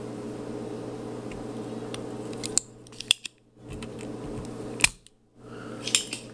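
Spring-loaded solder sucker (desoldering pump) firing with one loud sharp snap about five seconds in, as it pulls molten solder off a heat-sink leg; a few lighter clicks come before and after it. A steady low hum runs under the first half.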